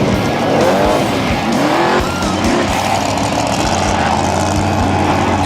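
Class 8 off-road race truck's engine revving up and down several times in the first two seconds, then running steadily under load.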